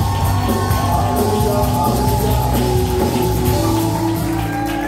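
Rock-style praise and worship music from a band with drum kit and guitar, playing steadily with sustained chords and regular drum hits.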